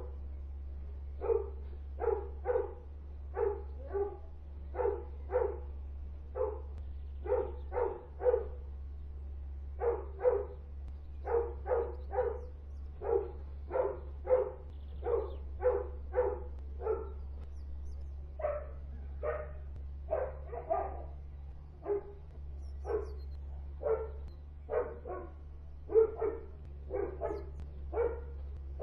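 Kennelled dogs barking over and over, about one to two barks a second with only short pauses: the nuisance barking from a neighbouring dog breeder's kennel. A steady low hum runs underneath.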